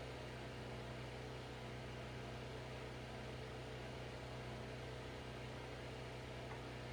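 Steady low hum with a faint even hiss underneath, unchanging throughout: background room tone.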